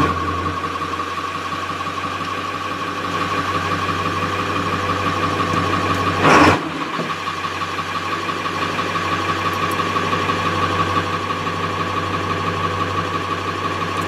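1995 Ford F-250's 7.3-litre Powerstroke V8 turbo-diesel idling steadily right after a cold start, unplugged at about 4 °C; the freshly replaced glow plugs have cured its cold no-start. A brief louder sound breaks in about six seconds in.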